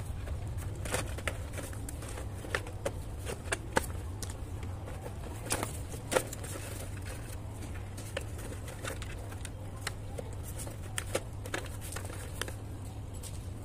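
Irregular light plastic clicks and knocks from a Hero Honda motorcycle's headlight cowl being handled and pressed back into place, over a steady low hum.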